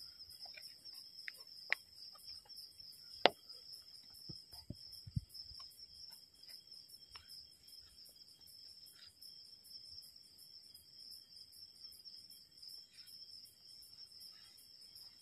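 Crickets chirping in a steady, high, pulsing trill, with a few sharp taps in the first few seconds, the loudest about three seconds in.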